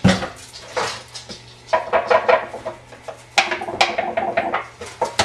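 Salt being shaken from a container over a raw chicken, heard as a run of quick, irregular rattling clicks with some clatter of kitchenware.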